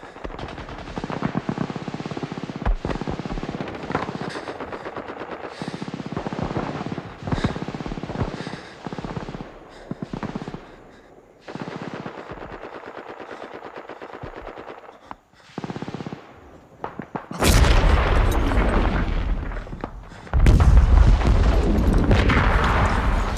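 Rapid machine-gun fire in long bursts mixed with single shots, then two heavy explosions with a deep rumble about three seconds apart, the second near the end and the loudest.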